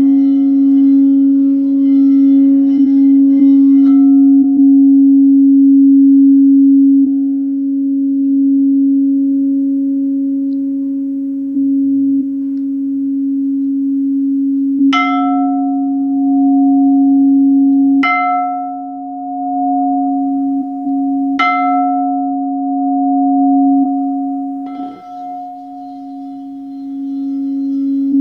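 Quartz crystal singing bowls: a low bowl sings one steady, sustained tone throughout, while a higher bowl is struck three times, about three seconds apart, each strike ringing on over the drone. A softer strike follows near the end.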